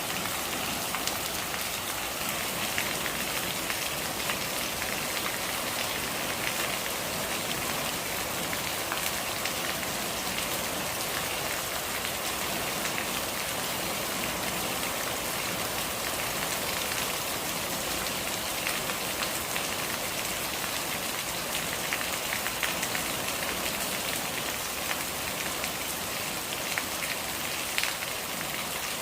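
Steady rain falling on a hard surface, a dense even patter of drops with occasional louder individual drips.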